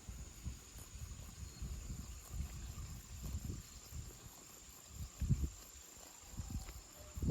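A steady, high-pitched insect drone runs under irregular low rumbles and thumps. The rumbles are loudest about five seconds in.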